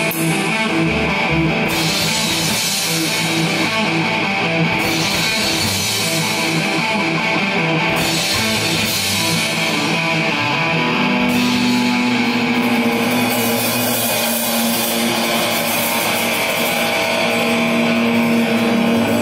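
Live rock band playing instrumental music on electric bass, electric guitar and drum kit. The cymbals drop out briefly several times, and from about halfway in the guitars hold long sustained notes.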